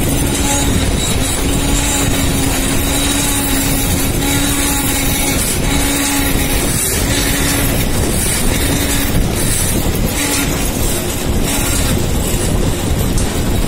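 Metal lathe turning a submersible pump impeller while the cutting tool trims its rim: loud, steady machine running noise, with a low hum that breaks off and comes back about once a second.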